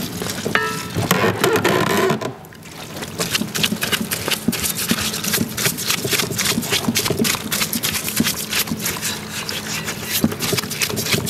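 Bristle brush scrubbing a crankshaft in a parts-washer tub of solvent, a rapid run of scratchy brush strokes over a steady low hum. The strokes drop away briefly about two seconds in, then run on densely.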